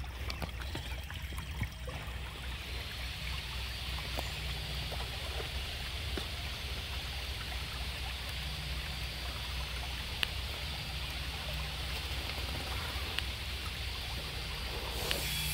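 Steady rushing and trickling of running water, with a few faint clicks.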